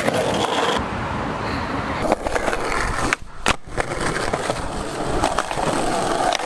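Skateboard wheels rolling over concrete, with a few sharp knocks of the board. The rolling sound breaks off briefly about three seconds in, then carries on.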